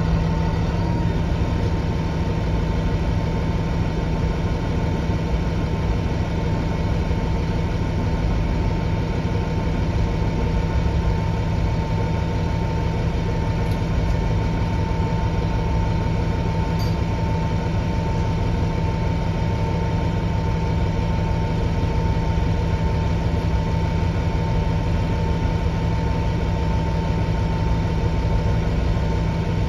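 Cabin noise inside a 2008 Nova Bus LFS city bus: the engine and drivetrain give a steady low drone with a constant high whine over it.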